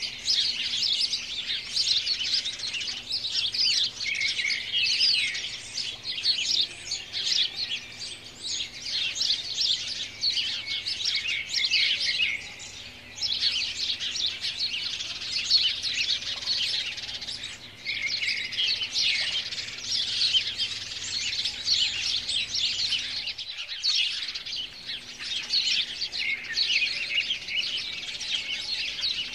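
Dense chorus of many small birds chirping and twittering without pause, with a brief break about two-thirds of the way through.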